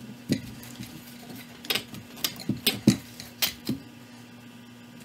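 Wooden backrest spindles being pulled from a metal chair frame and set down, clacking against each other and the frame in a string of sharp clicks over the first four seconds. A faint steady hum runs behind.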